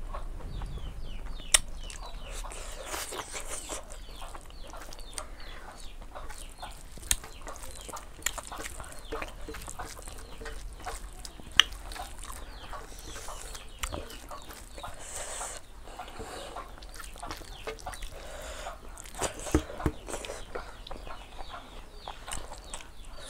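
Quiet eating by hand: chewing and mouth smacks while eating rice and pork, with a few sharp clicks, over faint bird chirping and clucking in the background.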